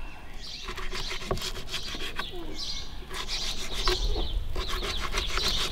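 Filleting knife slicing a raw trout fillet into thin strips on a plastic cutting board, a rapid run of short sawing and scraping strokes. The blade also cuts through the small pin bones.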